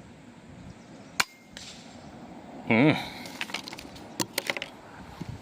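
A single sharp shot from an FX Impact M4 PCP air rifle about a second in. A brief, loud wavering tone follows near the middle, then a quick run of sharp clicks near the end as the scope turret is clicked over for zeroing.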